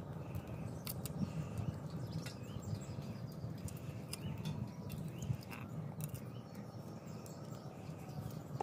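Small bata fish being scaled and cut against a boti's curved iron blade: faint scraping with scattered light clicks as scales and pieces come off.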